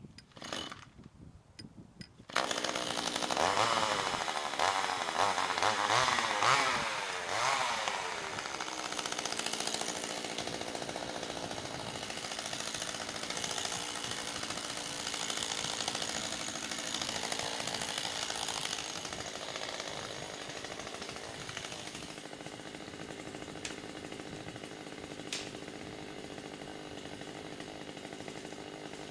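Chainsaw at work on dead trees. It comes in abruptly about two seconds in, revs rising and falling for several seconds, then runs more steadily.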